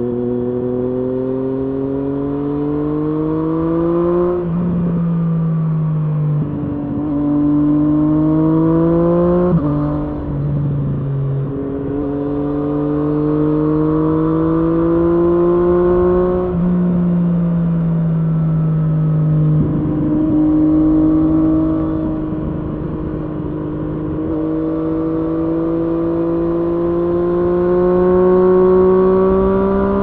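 Triumph Street Triple S inline three-cylinder engine through an SC-Project SC1-R slip-on exhaust with dB-killer, pulling under throttle: its note climbs steadily in pitch, drops sharply four times as the revs fall, then climbs again each time.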